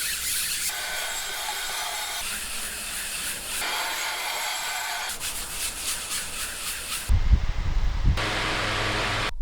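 Printmaking studio noises cut together in short segments: a hissing, rubbing noise that changes texture every second or so. A brief low rumble comes in about seven seconds in.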